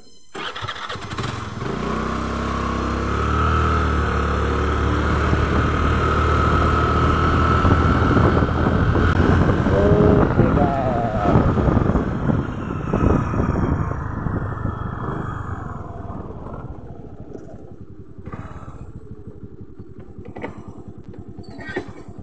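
Honda scooter's engine pulling away and running on the road, with rushing noise over the microphone. The engine note builds over the first couple of seconds and drops back to a quieter, lower running about three-quarters of the way through as the scooter slows.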